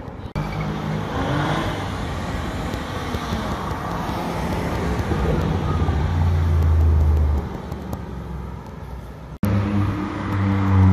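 Street traffic noise, then an Audi RS6 Avant's twin-turbo V8 accelerating past, loudest about six seconds in. After a sudden cut near the end, a red Ferrari V8 convertible accelerates hard, its engine note rising in pitch.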